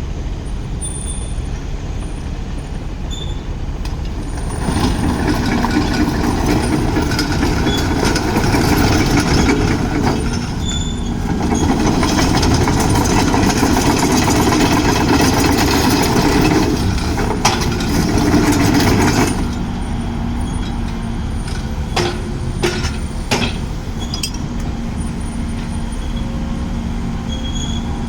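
Komatsu PC210LC-10 hydraulic excavator's diesel engine running at a low, steady level, then louder and brighter for about fifteen seconds from about five seconds in, as the machine is worked, with a short lull partway through. It settles back to the lower level, with a few sharp knocks a little later.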